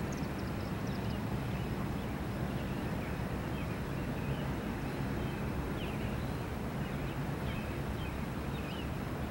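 Steady low rumble with short, high bird chirps scattered through it.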